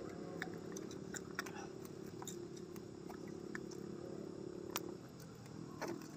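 Scattered small clicks and rustles of a fine nylon gill net as a caught fish is worked free of the mesh by hand, with one sharper click about five seconds in. A steady low hum runs underneath and stops at about the same point.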